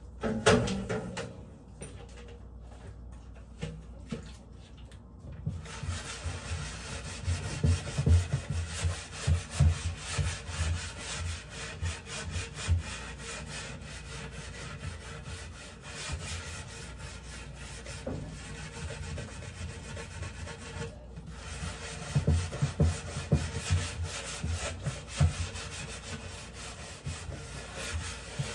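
Rapid back-and-forth scrubbing strokes by hand on a wooden kitchen cabinet door, cleaning grease off it, with dull thuds against the door. A sharp knock comes at the very start, and the scrubbing breaks off briefly about three-quarters of the way through.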